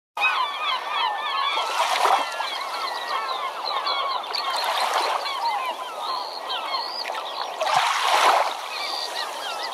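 A flock of birds calling, many short overlapping cries at once, with a rushing noise that swells and fades three times.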